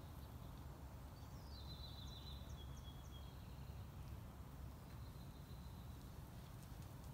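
Faint bird song: a high trilled phrase lasting about two seconds starts about a second in, and a fainter high call follows about five seconds in, over a low steady outdoor rumble.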